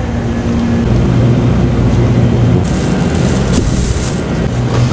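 Steady low hum of a shop's air conditioning and refrigerated display cases, with a rustle of handling noise for about a second and a half around the middle.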